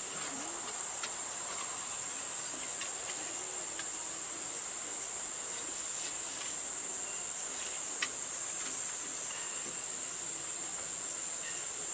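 Steady, high-pitched chorus of summer insects chirring without a break, with a few faint clicks over it.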